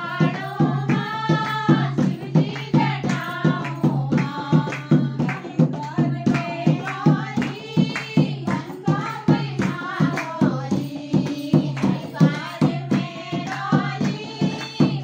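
A group of women singing a devotional bhajan, with hand-clapping and a dholak drum keeping a steady beat.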